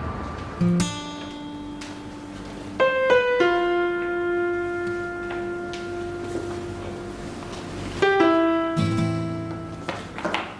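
Slow, sparse piano music from the drama's score: a few notes struck in small groups, about a second in, around three seconds in and again near eight seconds, each left ringing and slowly fading.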